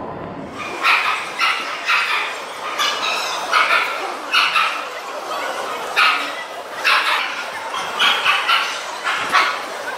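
Dog barking repeatedly, about a dozen short barks at uneven spacing.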